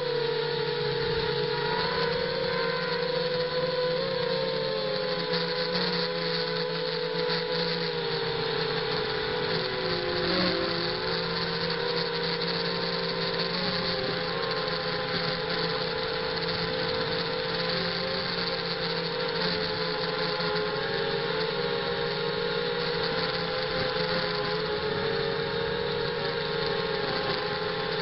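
ZMR 250 quadcopter's four brushless motors and propellers whining steadily in flight, heard up close through the onboard camera. The pitch wavers with throttle and dips briefly about ten seconds in.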